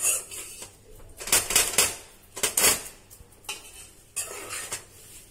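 Spatula stirring and scraping a thick masala in a nonstick kadhai, in uneven strokes that knock against the pan's sides. The masala is stirred continuously while the curd cooks into it, so that it does not split.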